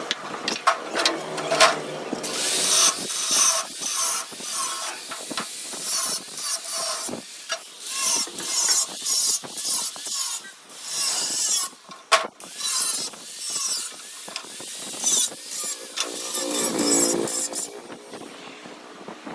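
Irregular metalwork noise: rasping, scraping and sharp clicks and knocks of tools on steel. A low droning tone joins near the end.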